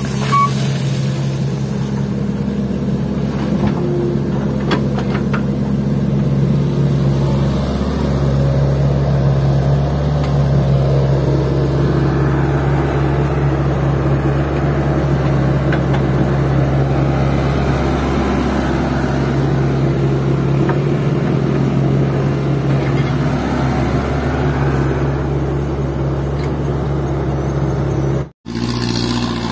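Large diesel engine running steadily, with a few faint knocks about four seconds in; the sound drops out for a moment near the end.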